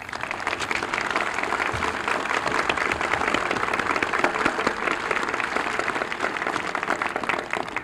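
Audience applauding: a crowd's dense clapping that starts abruptly and dies away near the end.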